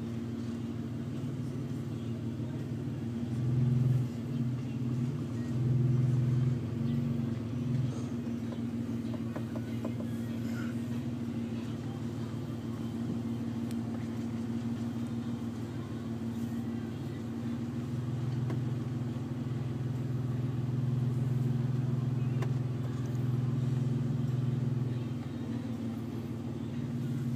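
Car engine and road noise heard from inside the cabin while driving slowly: a steady low hum that swells a little about four seconds in and again after about eighteen seconds.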